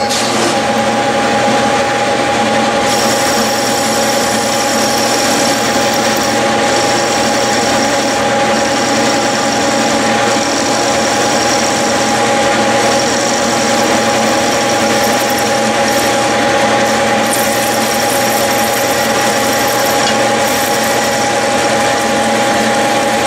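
Metal lathe running steadily while a parting tool cuts off a disc from aluminium bar. A steady motor hum, with a thin high whine coming in about three seconds in and breaking off now and then.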